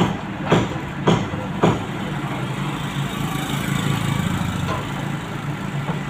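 Backhoe loader working, its diesel engine running steadily, with four sharp knocks about half a second apart in the first two seconds.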